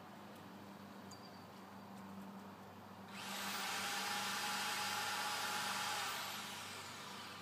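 Chainsaw idling low, then opened up about three seconds in to full throttle to cut into a tree for about three seconds before easing back down.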